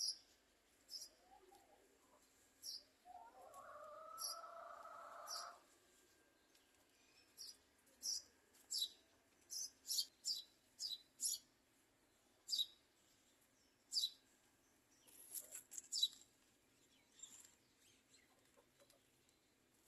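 Small birds chirping faintly: many short, sharp, high chirps at irregular intervals, bunched most closely in the middle. A few seconds in, a lower sound lasting about two seconds rises under them.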